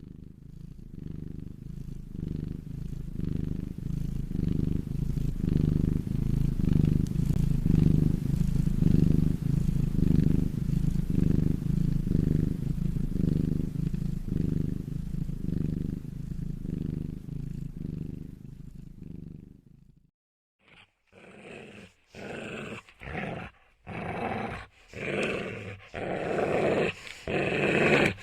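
A cat purring: a low, steady rumble that swells and fades with each breath, for about twenty seconds. It cuts off, and then a dog growls in short separate bursts.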